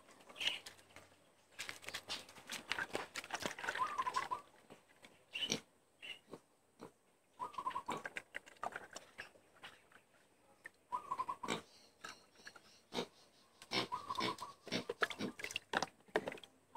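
Fish amino acid poured from a plastic dipper through a funnel into a plastic bottle, glugging and splashing in uneven spells with short pauses between.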